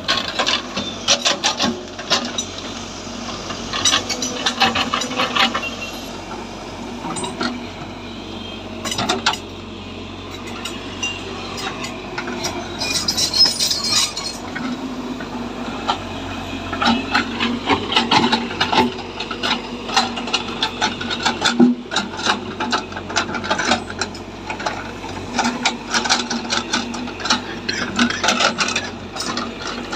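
Heavy earth-moving machine at work: irregular clattering and scraping over a low steady engine hum.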